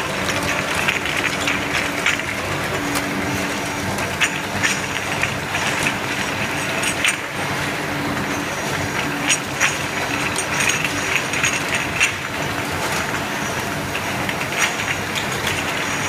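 Automatic glass-bottle washing machine running with a steady mechanical hum, while glass bottles on its conveyor clink against each other and against the guides many times a second at irregular intervals.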